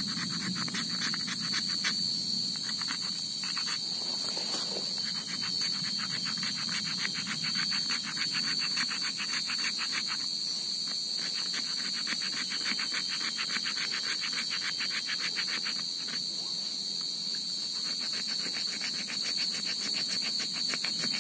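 Night insect chorus of crickets and similar insects: a steady high-pitched trill with a dense, fast pulsing underneath that drops out briefly a few times.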